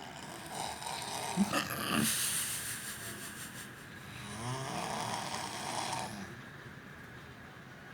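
Snoring during sleep: two long rasping snores about four seconds apart, the first broken by a short, sharp snort about a second and a half in.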